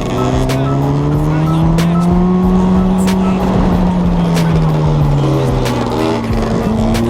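Two-stroke engine of a GasGas EC 250 enduro bike with a Pro Circuit full exhaust. Its pitch climbs steadily over the first three seconds, then falls back over the next three.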